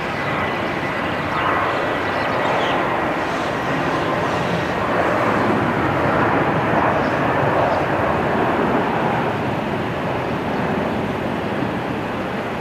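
Boeing 737-800's CFM56-7B jet engines running at taxi power as the airliner rolls past: a steady rushing jet noise that swells in the middle and eases off toward the end.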